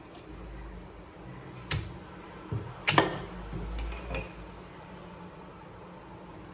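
Meat cleaver chopping through a raw cassava root onto a plastic cutting board: a few sharp knocks, the loudest two close together about three seconds in, then a couple of lighter knocks.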